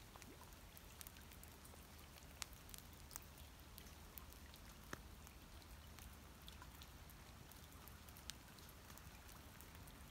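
Near silence with faint, scattered ticks of light drizzle raindrops, a handful of sharper drops standing out, over a faint low rumble.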